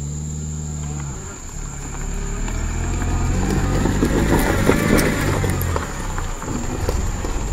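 Hyundai i20 hatchback's engine running under load as the car crawls over a steep, rough dirt-and-gravel track, with scattered crunches of stones under the tyres. The engine is steady at first, then grows louder from about two seconds in and eases near the end.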